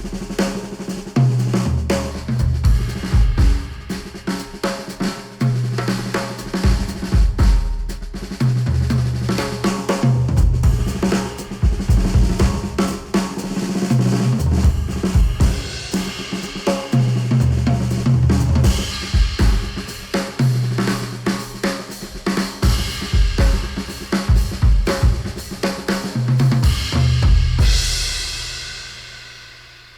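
Instrumental music with a full drum kit (kick, snare, cymbals, hi-hat) and a repeating bass line, played through headphones and picked up by microphones at the ear cups. It fades out near the end.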